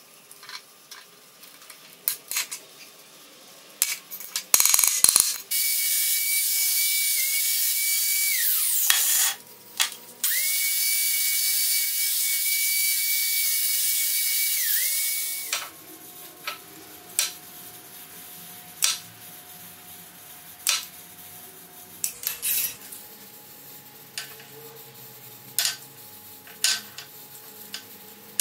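Tin snips clicking as they cut sheet metal, then a 4-1/2-inch DeWalt angle grinder running loudly twice for several seconds each as it grinds a small sheet-metal piece, winding down after each run. More snip cuts follow as single sharp clicks a second or two apart.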